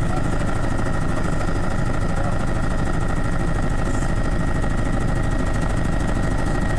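Helicopter in flight, heard from inside the cabin: steady rotor and engine noise with a constant high whine running through it.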